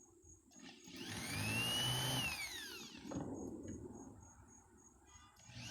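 Power drill spinning a countersink bit into wood: the motor whine rises in pitch and falls away again over about two seconds with a rough cutting hiss beneath it, and a few quick clicks come near the end.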